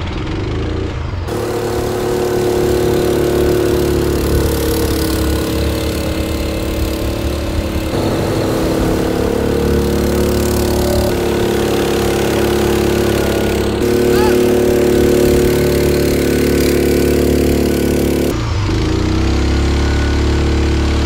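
Small gasoline engine of a jet-powered kayak running steadily at speed, with water rushing and splashing around the hull. The engine's tone shifts abruptly a few times.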